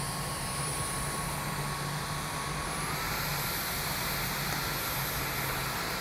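Dyson cordless stick vacuum running, its high-pitched motor whine over a steady rush of air. About three seconds in the motor speeds up and the whine steps up in pitch.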